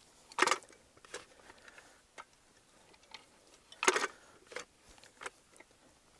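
Metal tines of a two-handled hand cultivator stabbing into and scraping through stony soil as it is worked and loosened. Two sharp crunches come about three and a half seconds apart, with lighter clicks and scrapes between.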